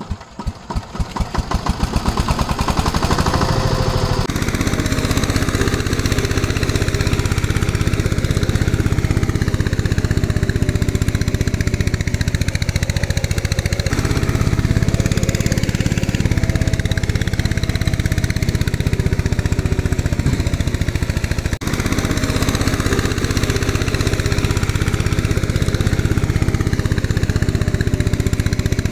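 Tractor engine running steadily with a fast, even chugging pulse. Its tone shifts abruptly a few times.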